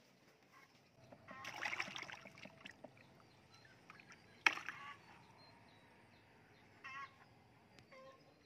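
Water splashing as a hooked fish thrashes at the pond surface and is pulled out, then, about halfway through, a short, sharp splash as the fish drops into a bucket of water.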